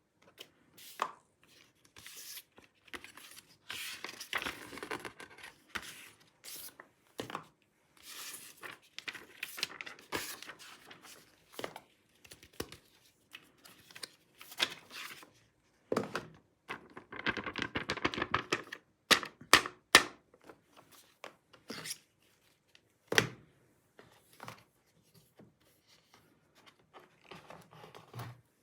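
Packaging being handled during a laptop unboxing: paper and plastic wrapping tearing and crinkling, with scattered knocks and clicks from the box and its contents. The rustling comes in longer stretches between the knocks.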